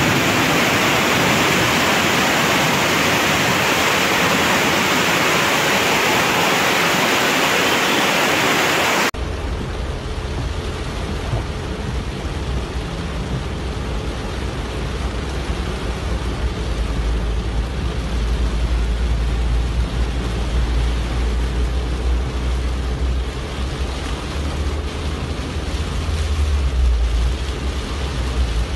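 Floodwater rushing, a loud, even hiss. About nine seconds in it cuts to the low rumble heard inside a car in heavy rain.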